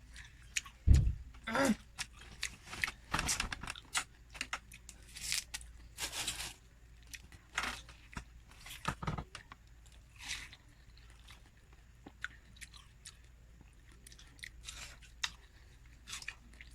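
A person biting into and chewing juicy watermelon, wet crunching bites coming at irregular intervals. A dull knock about a second in is the loudest sound.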